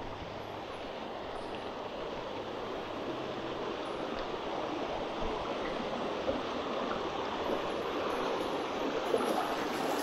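Water rushing along a narrow stone-lined channel, a steady splashing that grows slowly louder.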